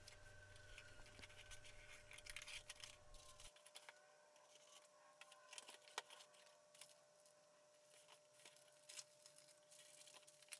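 Faint handling of cardboard packaging: scraping, rustling and light clicks and taps as a box is opened and its contents are moved.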